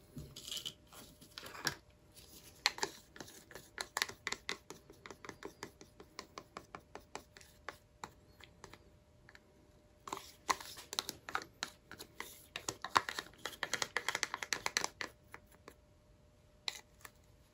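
Plastic paint cups and bottles being handled while paint is poured: a run of quick light clicks and scratches, a short lull about halfway, then a denser flurry.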